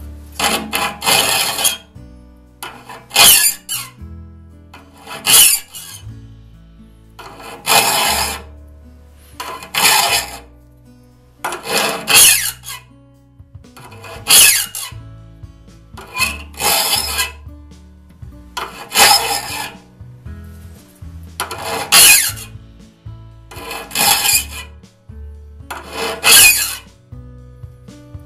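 A flat file rasping across the pointed teeth of a one-man crosscut saw, sharpening them, with one stroke about every two seconds. Quiet guitar music plays underneath.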